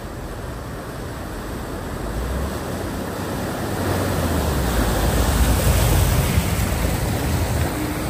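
A silver SEAT hatchback ploughing through deep floodwater, its bow wave rushing and splashing. The sound swells as the car nears and passes close by, loudest about five to seven seconds in.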